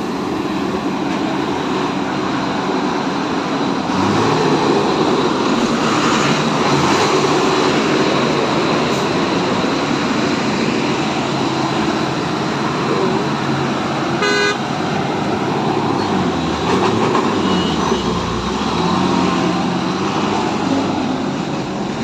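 Heavy road traffic heard from a two-wheeler riding close between trucks and cars: engines running steadily, with vehicle horns honking now and then, one short honk about two-thirds of the way in.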